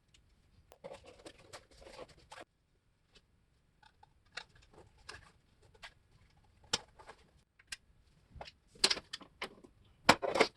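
Hand work on a car's interior and door trim: a stretch of rustling and scraping, then irregular sharp clicks and knocks of parts and tools being handled, loudest near the end.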